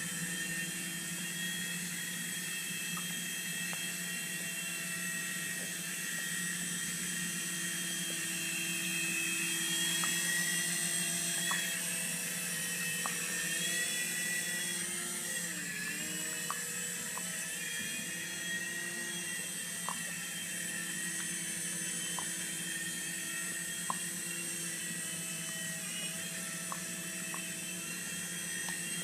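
Small electric motors of a toy helicopter whining steadily, several high tones together; the pitch sags and comes back up about halfway through as the throttle changes, with a few light clicks.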